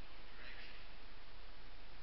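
Steady hiss with no clear source, and a faint short sound about half a second in.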